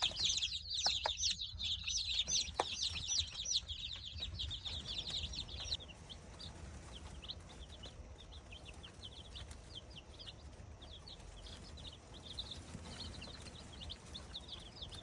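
A brood of Red Star (ISA Brown) baby chicks peeping: a dense chorus of short, high peeps for the first several seconds, thinning to scattered, quieter peeps, over a faint low steady hum.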